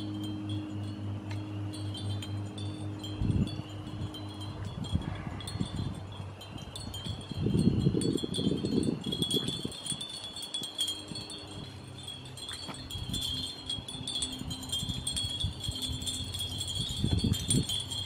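Hanging wind chimes ringing continuously with high, lingering tones, joined by low rumbling noise about three seconds in, again around eight to nine seconds, and near the end.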